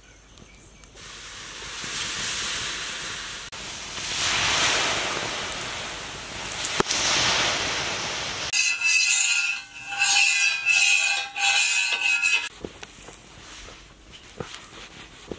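Water hissing and sizzling into steam on a hot flat metal griddle, swelling in surges; about eight seconds in it turns to a harsher crackling sizzle with a whistling edge for some four seconds. Near the end it dies down to quieter rubbing as a cloth wipes the griddle.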